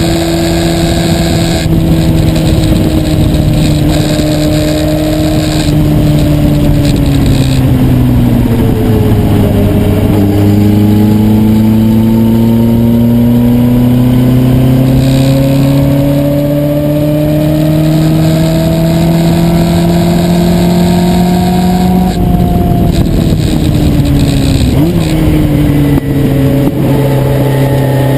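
Onboard sound of a Lola Mk1 sports racer's engine on track. The revs sag for several seconds, jump back up about ten seconds in, then climb steadily for about twelve seconds before falling away again near the end, over a steady rushing noise.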